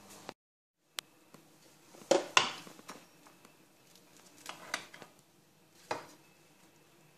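Metal spatula knocking and scraping against a metal baking pan as a piece of baked chicken pie is cut and lifted out. Two loud clatters come about two seconds in, a few lighter clinks around the middle, and one more near the end.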